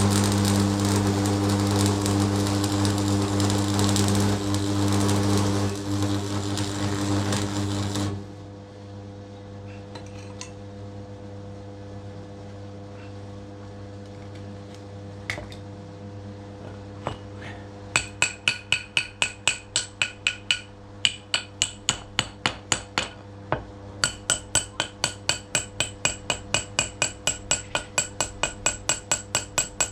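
A power tool runs loudly for about eight seconds and then stops. Later comes a long run of rapid, ringing metal taps, several a second, with a brief pause in the middle.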